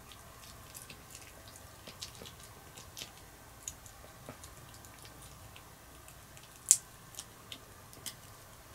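A white Pomeranian chewing a sweet potato and duck meat jerky treat: irregular sharp clicks and crunches of teeth working the dried chew, with one louder crack about two-thirds of the way through.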